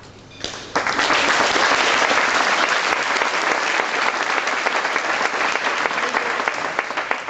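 Audience applause that breaks out suddenly just under a second in: dense, steady clapping that eases slightly near the end.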